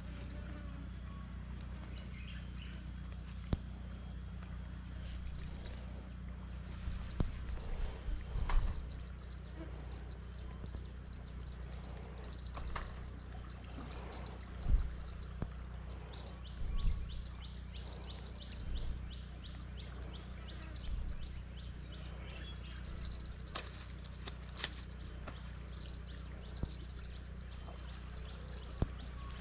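Insects calling from the riverside vegetation: a steady high-pitched drone with a fast pulsing chirp under it. A few dull low thumps break in now and then.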